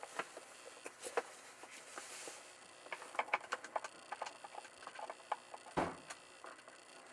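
Irregular light clicks and taps, with one sharper knock about six seconds in.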